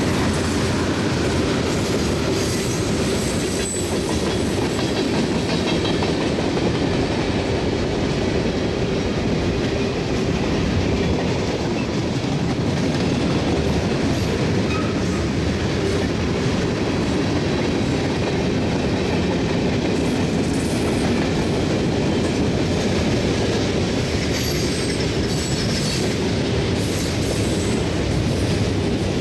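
Freight cars of a CSX mixed freight train rolling past: a steady noise of steel wheels on rail, with a few brief high streaks near the end.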